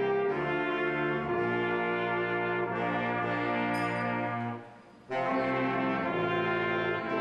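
A small brass and reed band of alto saxophone, trumpet, trombone and sousaphone playing held chords that change about once a second. The music dies away briefly about four and a half seconds in and comes back in half a second later.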